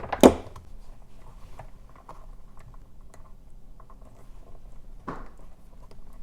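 Pliers squeezing a spade connector onto a rocker switch terminal: a sharp metallic click just after the start, then light scattered clicks of handling the small parts, and a firmer knock about five seconds in.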